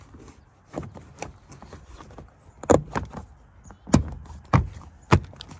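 Scattered knocks and clicks of a rubbery TPE floor mat being handled and pressed down onto a plastic floor anchor in the truck cab, the sharpest click about four seconds in as the mat snaps onto the anchor.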